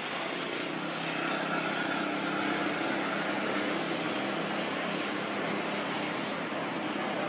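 A steady engine drone under an even hiss, with no distinct knocks or breaks.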